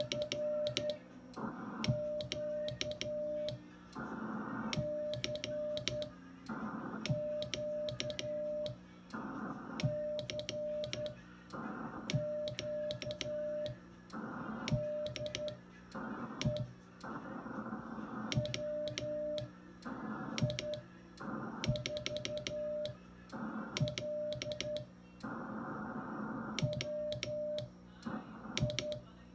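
Morse code (CW) being sent by hand: the transmitter's sidetone beeps at one steady pitch in groups of dots and dashes, one character after another. Sharp clicks mark the keying, and bursts of hiss fill the gaps between characters.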